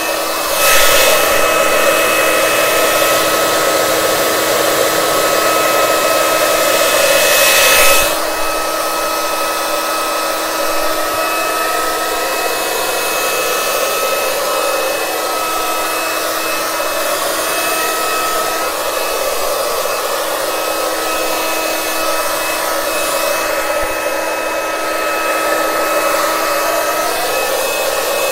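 Handleless hair dryer running on high, a steady rush of air with a constant motor whine. About a second in the air noise turns louder and hissier, then drops back sharply about eight seconds in.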